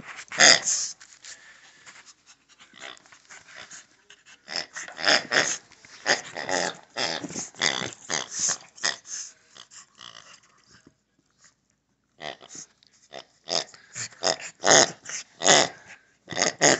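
A Shih Tzu chewing a rubber pig toy: quick runs of short squeaky grunts from the toy as it is bitten, mixed with the dog's growling. There is a brief pause about eleven seconds in.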